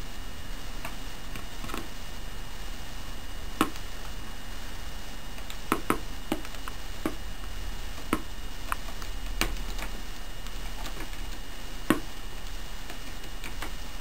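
Cockatiel's beak tapping and pecking at the hard clear plastic lid of a CD spindle case: about ten sharp, irregular clicks, the loudest about four seconds in and near the end.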